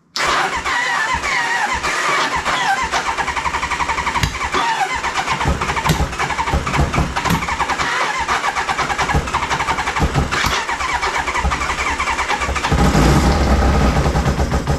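1994 Kawasaki ZX-6 (ZZR600) inline-four being cranked on its electric starter with raw fuel in the carburetors, trying to fire. It runs as a rapid, even pulsing that starts suddenly and grows louder and fuller near the end, a faint sign of life from the engine.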